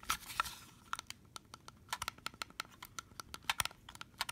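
A Linear MCT-2 garage door remote being handled: a brief rustle at the start, then many small, irregular plastic clicks and taps, several a second.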